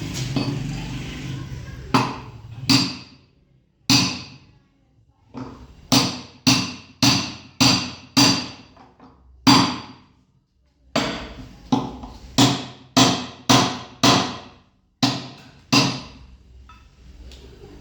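Hammer blows driving a new bearing into a washing machine's tub: about twenty sharp metallic strikes with a short ring, mostly about two a second, in runs broken by brief pauses.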